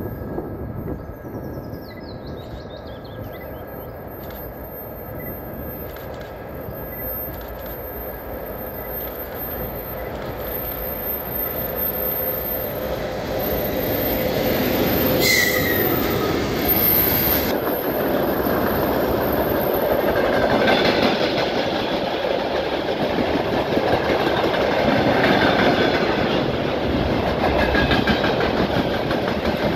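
A VL80S twin-section AC electric locomotive hauling a freight train, growing steadily louder as it approaches and passing close by about halfway through, with a brief sharp high-pitched sound as it goes past. Freight wagons then roll by with a loud steady rumble and the clickety-clack of wheels over rail joints.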